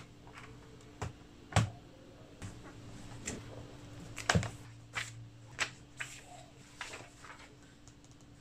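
Quiet, irregular taps and light paper sounds from handling an open textbook and loose pages on a desk, one every half second to second, over a faint steady hum.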